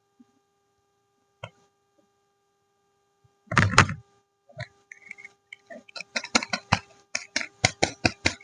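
Soap packaging being unwrapped by hand: a single short, loud crinkle about halfway through, then a quick run of crackles and taps, several a second, near the end.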